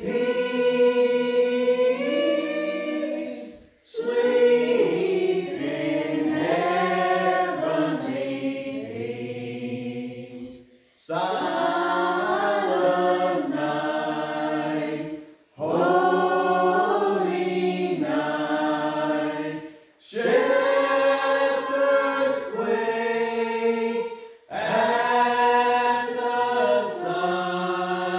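Small mixed church group of men, women and children singing a Christmas carol unaccompanied from hymnals, in phrases broken by brief pauses for breath every few seconds.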